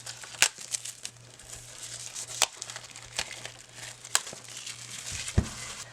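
Packaging crinkling and tearing as a boxed card deck is unwrapped by hand, with about five sharp snaps and crackles along the way.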